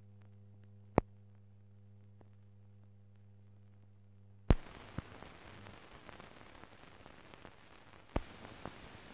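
Transfer noise of a film with no soundtrack: a steady electrical hum with a single click, then a loud pop about four and a half seconds in, after which the hum gives way to an even hiss with faint crackles. Another pop comes near the end.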